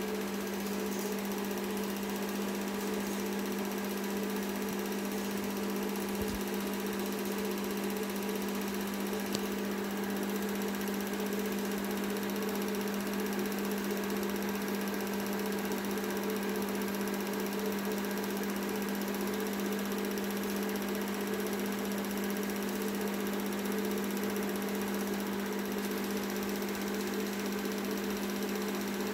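Film projector running: a steady, unchanging mechanical hum.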